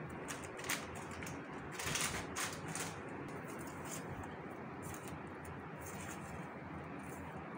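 Metal spoon scraping and clinking against a stainless steel bowl as dry flour and spices are stirred together: a few short scrapes, the loudest about two seconds in, over a steady low background hum.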